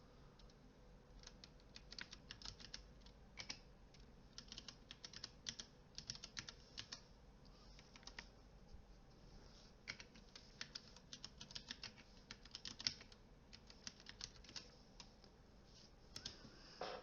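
Faint typing on a computer keyboard: irregular clusters of quick keystrokes with short pauses between them.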